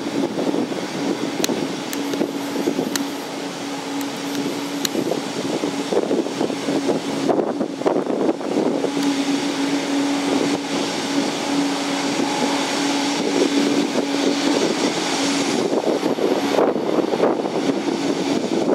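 Mitsubishi MU-2B-40's twin Garrett TPE331 turboprop engines running at taxi power: a steady turbine and propeller drone with a hum that fades in and out as the aircraft taxis.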